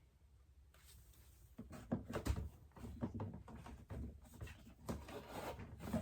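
Fidget toys being handled and set down while they are counted: a run of small knocks, clicks and rattles at uneven spacing, beginning about a second and a half in.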